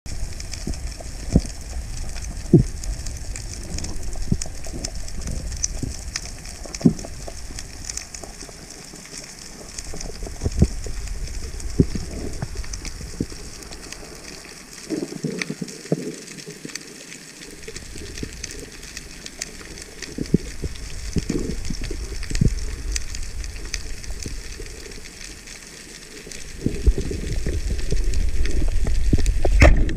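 Underwater ambience heard through a waterproof action-camera housing over a coral reef: a low muffled rumble of water movement with scattered dull knocks and a faint steady crackle. The rumble grows louder near the end.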